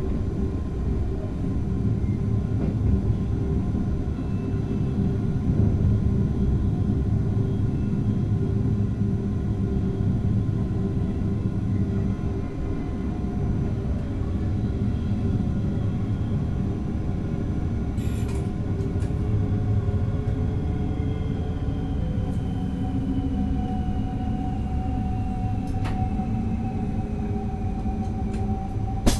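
Running noise of an NS DDZ double-deck electric train heard in the driver's cab: a steady rumble from the wheels and track with a motor whine. In the second half one whine tone slowly rises in pitch, and a few brief clicks come through.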